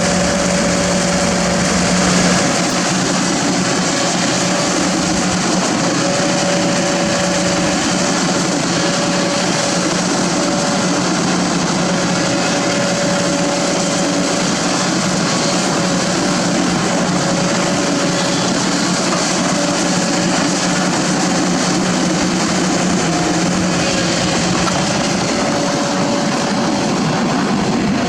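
Excavator's diesel engine running steadily, with a higher tone that drops out and returns every few seconds.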